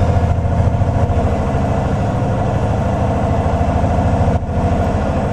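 Semi truck's diesel engine running steadily at low speed, heard from inside the cab, with a brief dip in level about four and a half seconds in.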